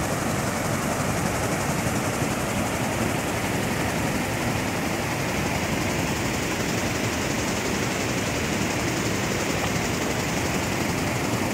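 Steady rushing of water spilling over the long edge of a fountain cascade into a pool, an even noise without pauses.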